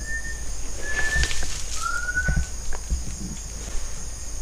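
Three short, clear whistled notes in quick succession, the first two level and the third a little lower and gently rising. The whistler is unseen, and the man on site takes it for someone whistling.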